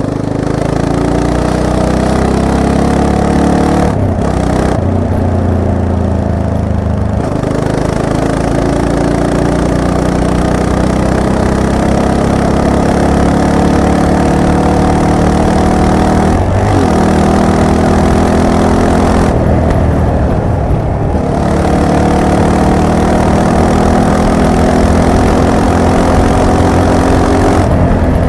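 Yamaha MT-03's 321 cc parallel-twin engine under way, its revs climbing and falling several times as the rider shifts gears and works the throttle.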